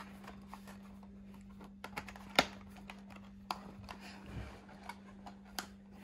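Scattered light clicks and taps of a cardboard product box being handled, the sharpest about two and a half seconds in, with a soft thump as it is set down on bedding. A faint steady low hum runs underneath.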